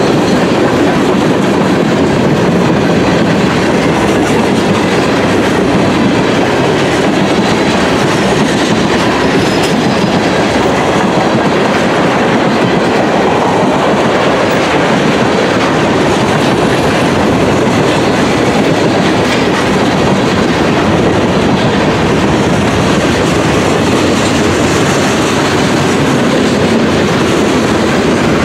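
Freight cars rolling past close by: a loud, steady noise of steel wheels running over the rails, unbroken throughout.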